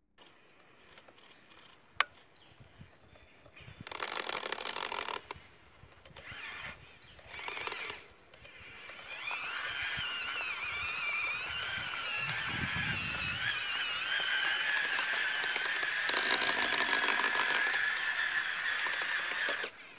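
Small electric gear motors of a homemade cardboard RC tank running, with a whine that wavers in pitch: in short spells at first, then steadily for about ten seconds. There is a sharp click about two seconds in.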